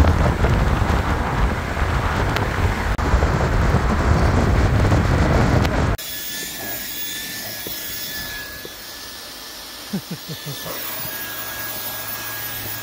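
Wind and road noise in an open-top Mini convertible on the move. About six seconds in it cuts to a Dyson cordless vacuum cleaner running with a steady high whine as it cleans the car's carpet, with a few knocks from the nozzle near the end.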